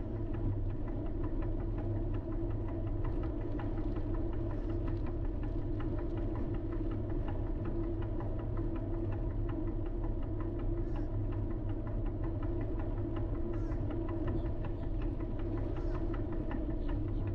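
Steady engine and road hum of a vehicle driving at an even pace, with a fast, faint ticking.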